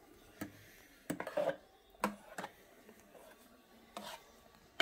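Faint, scattered clicks and light knocks of kitchen utensils being handled, with a sharper click at the very end.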